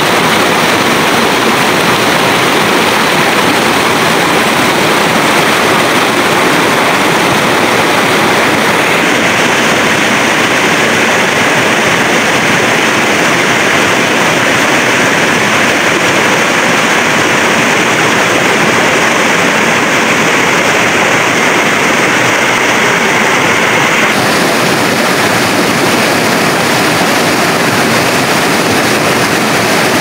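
Shallow rocky river rushing over boulders and stones: a loud, steady rush of water. Its tone shifts slightly about nine seconds in and again about twenty-four seconds in.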